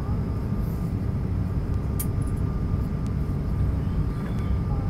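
Steady low rumble of cabin noise inside an Airbus A220-300 on approach, from its Pratt & Whitney PW1500G geared turbofans and the rushing air. A faint steady whine runs through it, and there is a single sharp click about two seconds in.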